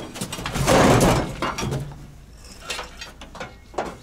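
Scraping and clattering as something is handled and pulled loose inside a metal truck cab, loudest about a second in, then a few lighter knocks.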